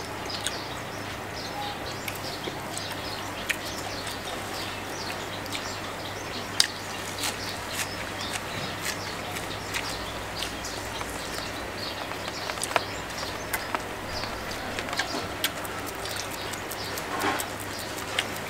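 Birds chirping and a dove cooing over a steady background hiss, with scattered short clicks from people eating with their hands, chewing crispy fried salmon and sticky rice.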